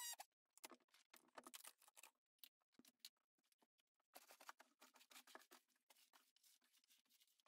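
Faint scattered scratches and clicks, then from about four seconds in a broom's bristles sweeping wood debris from the removed sill plate across a wooden floor, all very quiet.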